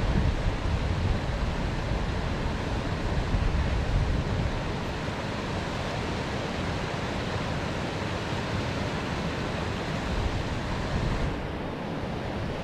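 Fast mountain creek rushing over rocks: a steady wash of white water, with some wind buffeting the microphone in the first few seconds.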